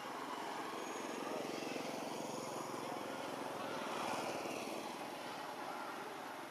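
Engine of a passing motor vehicle, a steady running sound that grows louder to about four seconds in and then fades.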